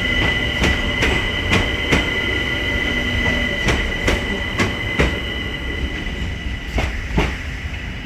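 Electric multiple-unit train rolling past on the rails, its wheels squealing in a steady high tone over a low rumble. Sharp clicks, often in pairs, come as wheelsets cross rail joints, and they fade toward the end.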